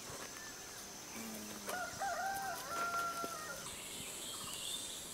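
A rooster crowing once, faintly, for about two seconds, starting about a second and a half in; its note wavers, then holds steady before it stops.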